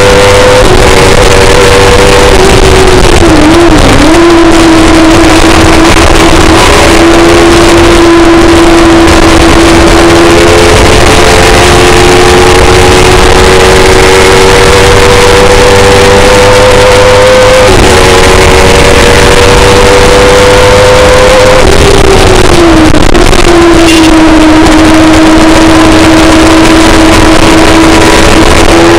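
On-board sound of a Kawasaki ZX-10R motorcycle-engined sports racer at racing speed: a steady high-revving engine note over heavy wind noise, the pitch climbing slowly along the straights. It dips sharply about four seconds in as the car brakes and drops from fifth to fourth, changes step about eighteen seconds in, and falls again around twenty-two seconds before picking up.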